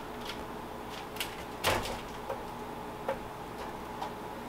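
A few light clicks and knocks as a fork pokes baked potatoes on a metal baking sheet, the clearest a little under two seconds in, over a steady background hum.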